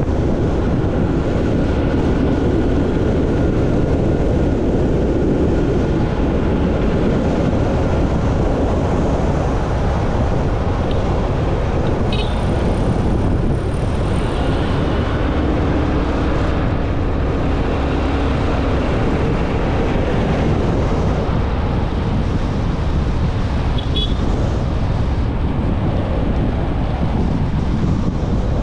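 Motorcycle in motion: steady engine and road noise under a constant low rush of wind buffeting the microphone.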